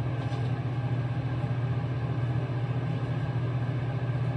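A steady low hum with an even hiss underneath, from a running motor or appliance.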